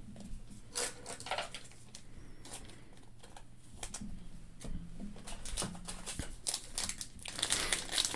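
Hands handling baseball cards and a trading-card pack wrapper: light rustles and clicks, turning into denser crinkling and tearing near the end as a new pack is ripped open.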